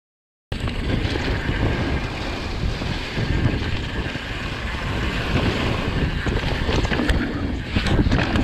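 Mountain bike riding fast over wooden boardwalk and plank berms: a steady rumble of tyres on the planks and rattling of the bike, mixed with heavy wind noise on the action camera's microphone. It starts abruptly about half a second in, and there are a few sharp knocks near the end.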